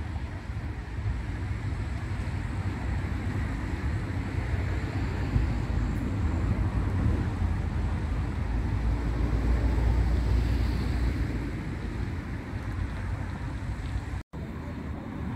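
Wind buffeting the microphone: a steady, uneven low rumble with a faint hiss above it, broken off for an instant near the end.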